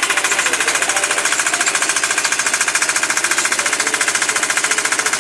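Small long-tail boat motor running steadily under way: a loud, rapid, even chatter of exhaust pulses.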